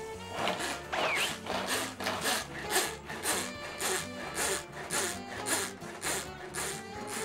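Rhythmic scraping or rubbing strokes, about two a second, during kitchen prep work, over background music.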